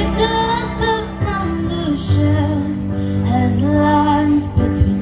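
Live band music: a woman singing a slow lead vocal line with held, wavering notes over sustained backing chords and bass.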